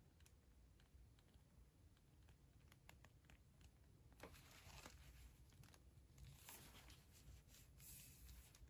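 Near silence, with faint clicks and rustles of handling as a small metal food tin is turned over in the hands. The rustling picks up about halfway through.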